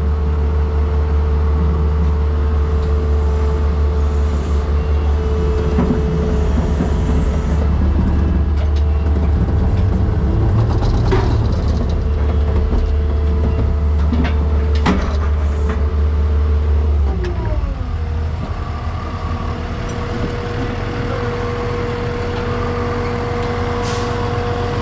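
Heavy vehicle engine running hard under load, with a steady whine over it, then easing off about seventeen seconds in with a falling pitch and running lower after. A couple of sharp clicks or knocks in the middle.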